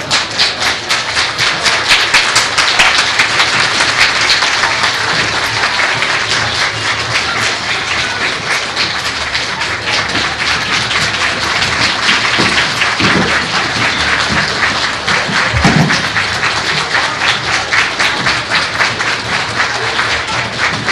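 A large audience of adults and children applauding.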